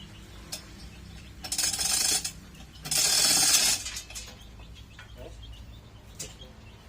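Manual 1-ton chain block being hauled: the steel chain runs through the hoist with a rapid metallic rattle and clicking, in two bursts of just under a second each.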